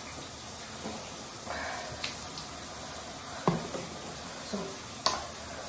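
Steady hiss with a few light knocks and clicks as a plastic water bottle is handled and set down on a counter; the sharpest knock comes about three and a half seconds in.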